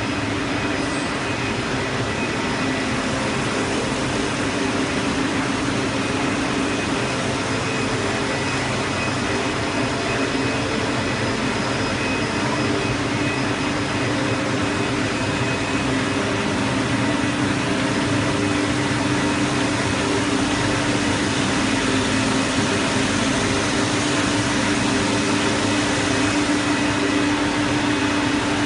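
Steady hum and whir of running pressroom machinery around a sheet-fed offset press, with a few steady tones through it. It grows a little louder in the second half.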